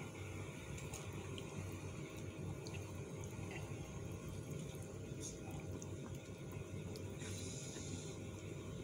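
A ceramic soup spoon scooping and stirring the broth of a fish and vegetable soup in a pot: soft liquid sloshing with a few faint ticks of the spoon, over a steady low hum.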